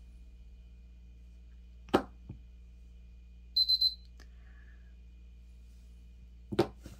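Gel polish bottle and brush handled on a tabletop: a sharp click about two seconds in and a double knock near the end. In the middle come three quick high electronic beeps.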